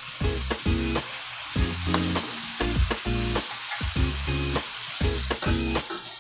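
Food frying in a pan with a steady sizzle, under background music.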